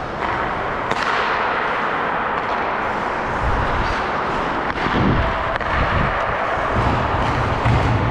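Ice hockey play: a steady hiss and scrape of skates on the ice, with sharp cracks of play about a second in and again near five seconds. A low rumble joins from about three and a half seconds in.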